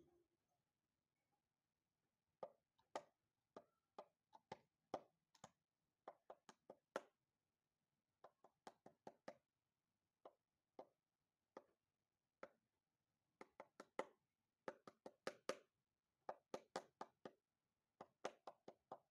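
Quiet, irregular series of short, sharp clicks or taps, coming in quick clusters of a few at a time with brief pauses between.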